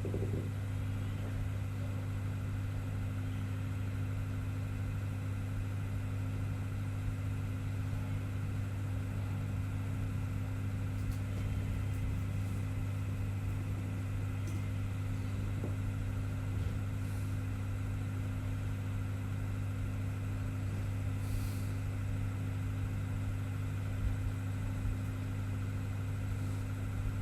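Steady low background hum, strongest low down with a few fainter steady tones above it, and a few faint short ticks.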